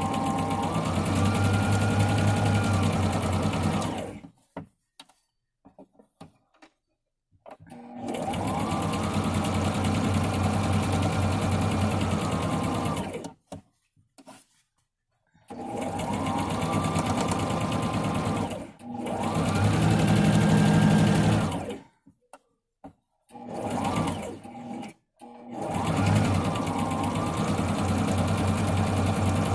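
Electric domestic sewing machine stitching a series of patchwork seams in about six runs of one to five seconds, speeding up at each start and slowing at each stop, with short quiet pauses between runs.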